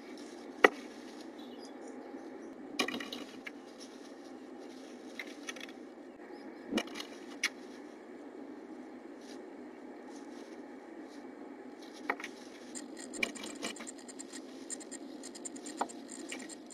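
Blue tit working moss and dry grass into its nest inside a wooden nest box: rustling and scratching of nesting material, with sharp knocks and scrapes as its feet and beak strike the wood, the loudest about half a second in. A steady low hum runs underneath.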